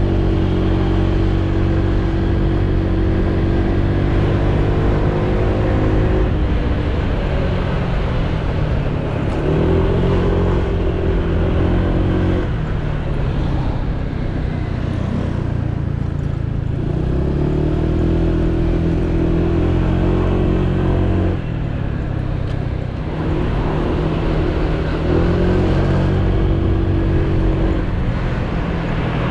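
Honda PCX 125 scooter's single-cylinder four-stroke engine running on the move through its automatic belt drive. Its pitch climbs as the throttle opens and drops back when it eases, several times over, above a steady rush of wind and road noise.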